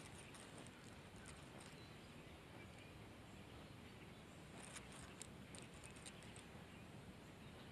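Near silence: faint outdoor ambience, with scattered faint high ticks near the start and again around five to six seconds in.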